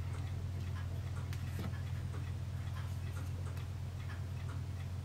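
Faint regular ticking over a steady low hum.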